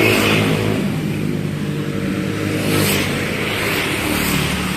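Bus diesel engine running at idle, a steady low hum that eases slightly about a second in.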